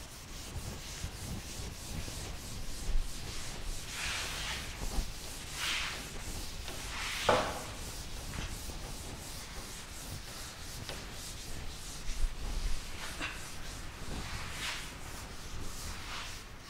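Chalkboard duster wiping chalk off a chalkboard: a run of rubbing strokes of uneven strength, with one sharper stroke about seven seconds in.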